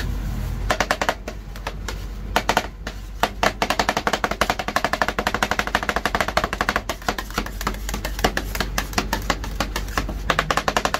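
Two metal spatulas chopping and mixing ice cream on the steel cold plate of a rolled-ice-cream counter: rapid clacks of blade on steel, several a second, starting about a second in with a short lull near two seconds. The clacks come from chopping the ice-cream base as it freezes on the plate.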